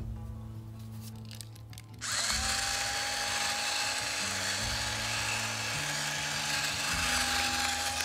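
Small electric grinder, most likely a battery pepper mill grinding black pepper over the bowl, switching on about two seconds in with a brief rising whine, then running steadily with a grinding hiss. Background music with low notes plays underneath.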